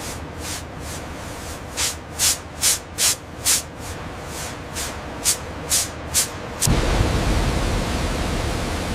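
Steady hissing noise, with about ten short, sharp hisses at roughly two a second through the middle. Near the end it turns into a louder, fuller rushing noise with more rumble underneath.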